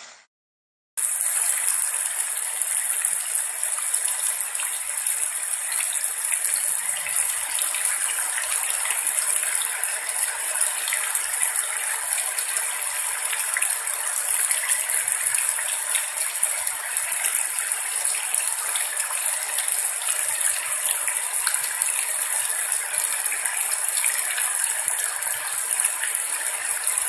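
Steady rain falling, a dense even hiss with fine pattering crackle. It starts abruptly about a second in, after a moment of silence.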